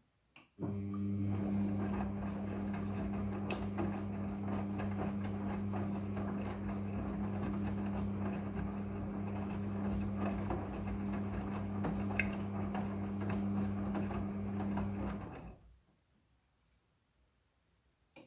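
Midea front-loading washing machine's motor turning the drum at a steady speed, a hum with rustling and tumbling on top, starting just after a click and stopping abruptly after about 15 seconds, as the drum does in the tumbling phase of a wash.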